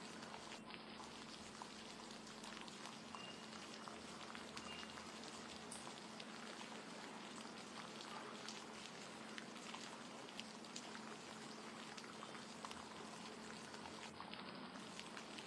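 Steady rain falling: a constant soft hiss dotted with many small drop ticks.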